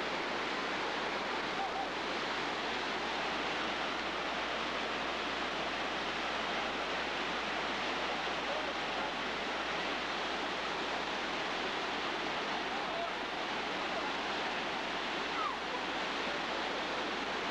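Waterfall: water pouring over rock ledges and churning below, a steady, unbroken rushing sound.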